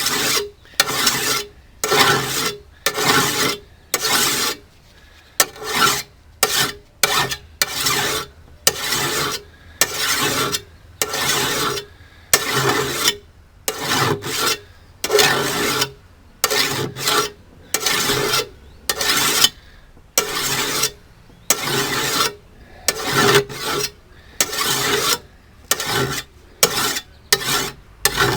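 Single-cut flat file rasping along the edge of a steel brush-cutting blade in a long series of strokes, about one and a half a second, putting a new edge on the blade.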